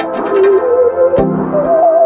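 Background music: a song with a wavering melody line over a beat struck about once a second.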